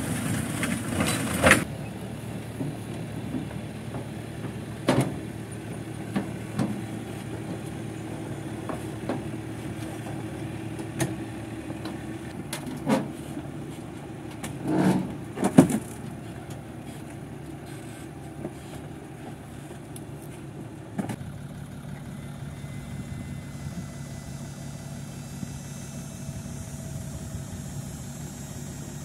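Compact crawler tractor engine running steadily, with occasional sharp metallic clanks and knocks as its steel tracks climb the loading ramps; the loudest pair comes about fifteen seconds in.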